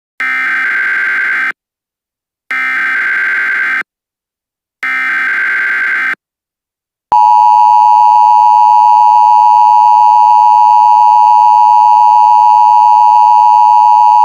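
Emergency Alert System header: three identical bursts of warbling digital data tones, each about a second and a half long with short gaps between them. About seven seconds in, the long, steady EAS attention tone starts and holds loud and unbroken.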